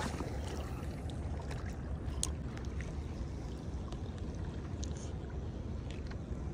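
Steady low rumble of wind and water noise, with a few faint clicks.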